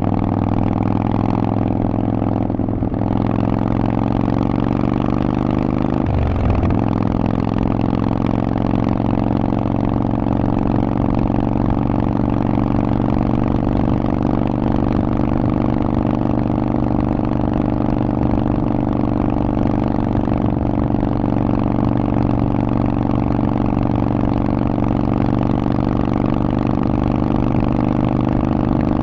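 Harley-Davidson Forty-Eight's V-twin running through a Vance & Hines exhaust at a steady engine speed under way. The note breaks briefly about six seconds in, then settles back to a steady run.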